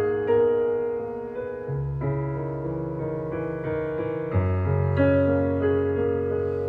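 Background piano music: slow, held chords under single melody notes, the bass note changing twice.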